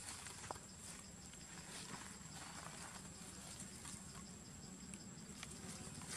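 Faint outdoor ambience: a steady high-pitched insect drone with light, scattered rustles and ticks of dry leaf litter under macaques' feet.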